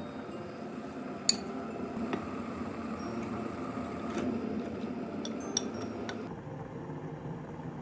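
Kitchen utensils clinking against cookware and dishes: a few light clinks, with one sharp clink a little over a second in.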